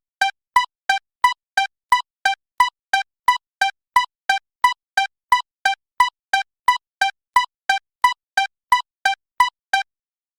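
Japanese railroad crossing warning bell ringing: the same two-pitched electronic ding repeated steadily about three times a second, stopping shortly before the end.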